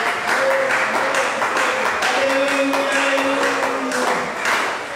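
Church worship music with long held notes, over rhythmic hand clapping at about four to five claps a second.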